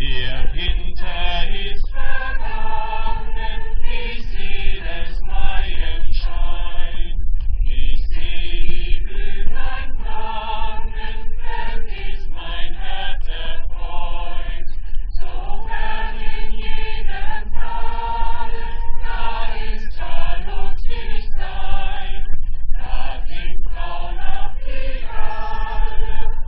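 A choir singing a song, phrase after phrase, with brief gaps between the lines.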